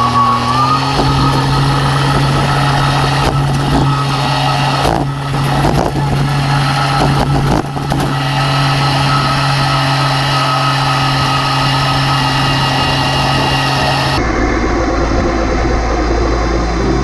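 Stump grinder's gasoline engine running steadily at a constant speed, with rougher grinding noise over the engine tone. The sound shifts abruptly about half a second in and again near the end.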